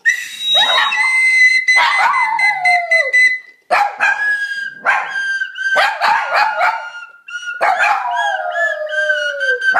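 A small dog howling along with a recorder. The recorder holds long steady notes, a higher one for about the first three seconds and a slightly lower one after a short break. Over them the dog gives a string of howls that slide down in pitch.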